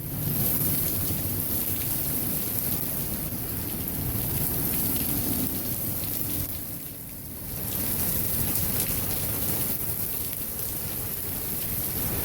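Heavy thunderstorm rain pouring down steadily with a high hiss, over a low rumble of thunder; the level dips briefly about seven seconds in.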